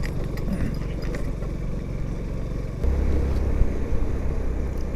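Motorcycle engine running while riding, a steady low hum that grows louder about three seconds in.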